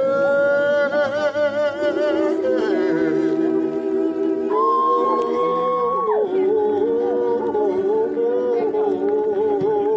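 Gospel choir singing a cappella in harmony, several voices holding long notes with vibrato. About halfway through a higher voice holds a note and then slides down into the chord.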